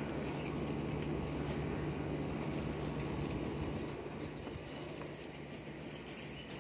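Dogs' paws padding and scuffling on grass and dirt as they play, over a low steady rumble.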